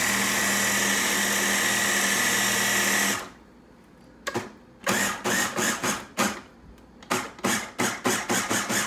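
Electric food chopper motor running steadily while blending a thick potato and vegetable mixture, then cutting off about three seconds in. It follows with a quick run of short pulses, about two to three a second.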